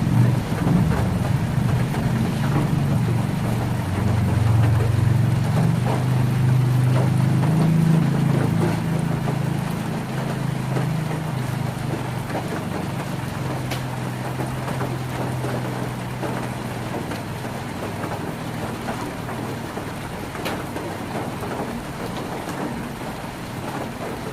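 Heavy rain drumming on a tin roof, with scattered drop clicks. A long, low roll of thunder swells in the first half and fades away about two-thirds of the way through.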